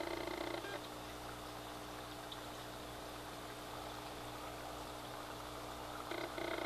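Aquarium air pump running a sponge filter: a steady buzzing hum over a faint trickle of water. The louder part of the hum drops away about a second in and comes back near the end.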